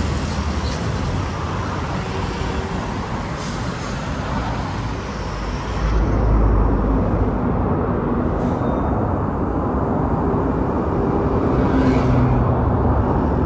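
Road traffic with a city bus's diesel engine running as it pulls past close by, cars passing alongside. The low engine rumble swells about six seconds in and again near the end.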